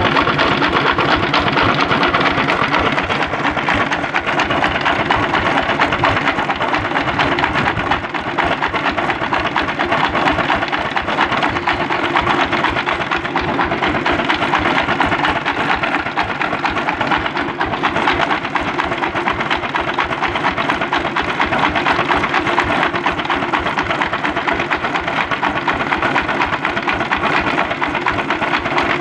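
Single-cylinder dompeng diesel engine running at a steady speed with a fast, even clatter.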